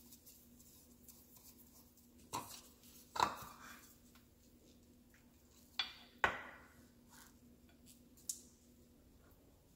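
Wooden spoon knocking and scraping in a ceramic bowl while stirring softened cream cheese with shredded white cheddar, with a small bowl set down on the counter: about five short, sharp knocks spread over faint scraping.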